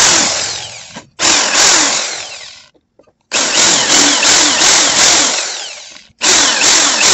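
Electric drill boring into the brass body of a padlock, drilling for the pin that holds the shackle. The drill runs in loud bursts, stopping and restarting about three times as the bit chews into the brass.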